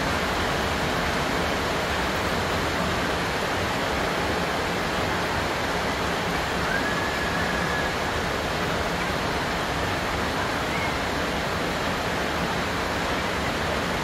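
Rain falling steadily, an even, unbroken hiss.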